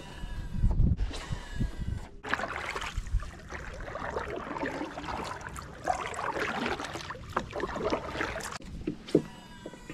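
Water sloshing and lapping against a moving fishing kayak's hull, an uneven wash with a few light knocks.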